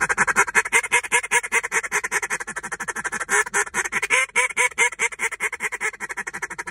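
A duck call blown in a refuge feed chatter: a fast, unbroken rolling feed chatter of about ten notes a second. Louder hen-duck cadences are mixed into it, giving the illusion of several ducks calling at once.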